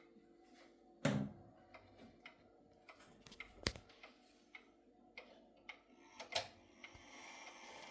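Jauch German chime clock movement ticking faintly, with a louder knock about a second in and two sharper clicks later on.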